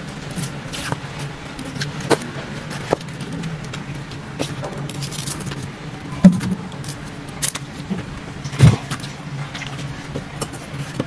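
Large knife cutting and handling slabs of ocean sunfish flesh on a wet wooden board: scattered taps and knocks of blade and meat on the board, with two louder knocks about six and eight and a half seconds in, over a steady low hum.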